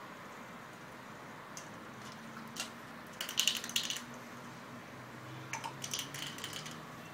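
Two bursts of quick clicking and rattling, a little before the middle and again near the end, as a puppy scrabbles on a tile floor and knocks at a small toy cockroach. A faint low hum runs under them.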